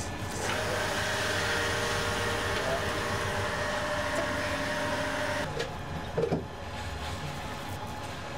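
A steady machine-like whir, like a small motor running, starts abruptly about half a second in and cuts off about five seconds later. A couple of short, soft knocks follow.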